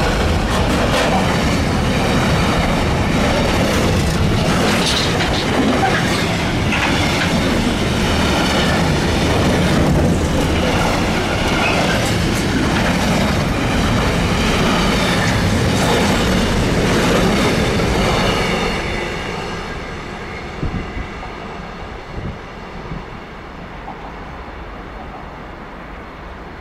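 A train rolling past on the track, loud and steady, then fading away about nineteen seconds in.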